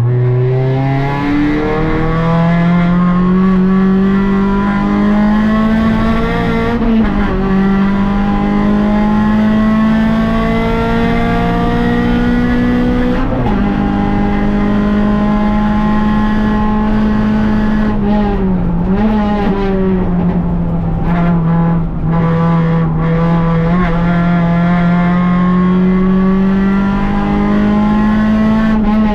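Rally car's engine heard from inside the car, running hard at high revs on a special stage. The pitch jumps up about a second in, then stays high, dipping and rising briefly several times.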